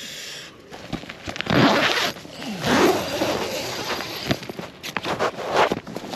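Nylon tent door zip being pulled open in several rasping strokes, with the tent fabric rustling.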